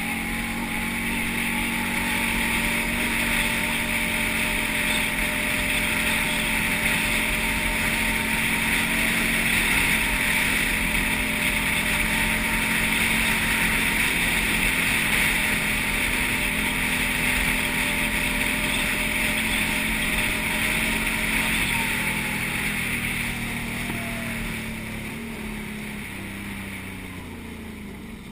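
Can-Am quad bike engine running steadily under way on a grass track, with tyre and wind hiss. About three-quarters of the way through, the engine note falls and gets quieter as the quad slows down.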